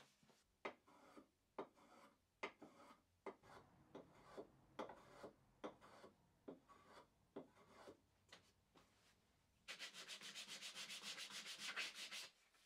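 Faint hand-sanding of a solid black walnut corbel with sandpaper: uneven scratchy strokes, then about ten seconds in a quick, even back-and-forth rubbing of about eight strokes a second.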